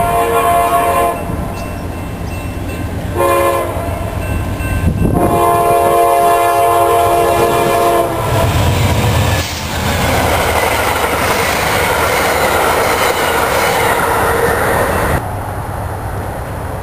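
Amtrak diesel locomotive's air horn sounding three blasts, long, short, long, the close of a grade-crossing signal, followed by the rumble and rush of the locomotive and passenger cars passing close by. The sound cuts off abruptly near the end.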